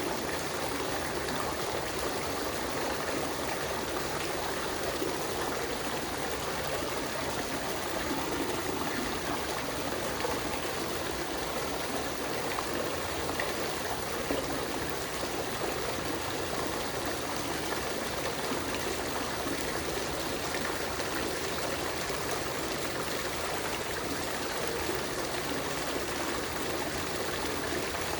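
Water fountain running, a steady, even splash and trickle of falling water.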